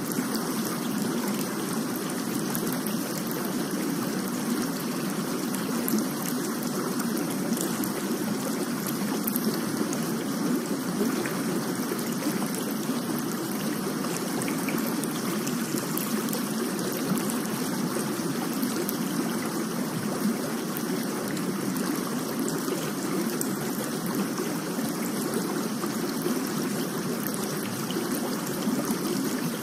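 Steady water ambience: an even rushing hiss with faint, scattered drip-like clicks.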